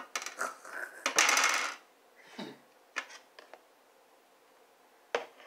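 Condiment bottles and a table knife being handled on a tabletop: several light clicks and knocks, with a rattling clatter lasting about half a second about a second in, then a few single clicks.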